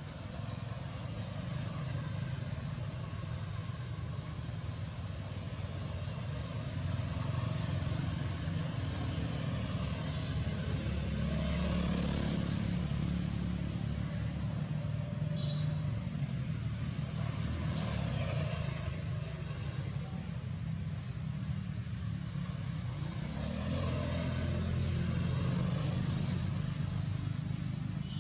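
Motor vehicles passing on a nearby road, a steady low rumble that swells three times as vehicles go by: about twelve, eighteen and twenty-five seconds in.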